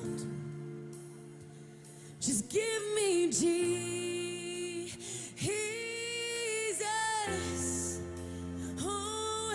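Live worship music: a woman sings slow, held phrases over sustained chords. The voice comes in about two seconds in, and the chord underneath shifts to a deeper one about seven seconds in.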